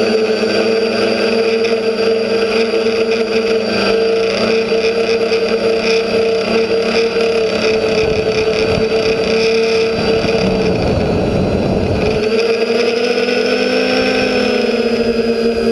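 TBS Discovery quadcopter's electric motors and propellers buzzing steadily in flight, the pitch wavering slightly. For a few seconds around the middle, a rougher rushing noise rises beneath the buzz and the pitch dips, then the steady buzz returns.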